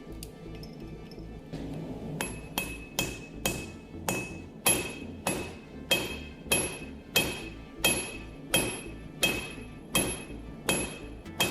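Steady hand-hammer blows forging a hot railroad spike on an anvil, about one and a half blows a second starting about two seconds in, each with a bright metallic ring.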